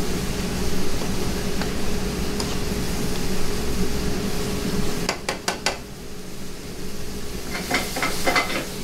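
Mushrooms sautéing in a pan, a utensil stirring them over a steady kitchen hum. A few sharp clinks of metal on the pan come about five seconds in, and more scraping and clatter near the end.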